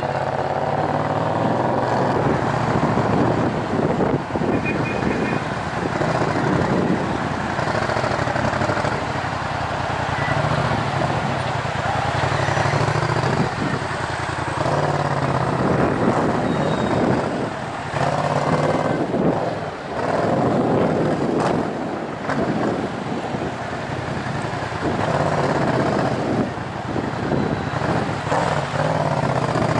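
Yamaha MT-07's 689 cc parallel-twin engine through a Tiger full aftermarket exhaust with decat headers, running loud at low speed and idling in stop-and-go traffic. The revs rise and fall several times.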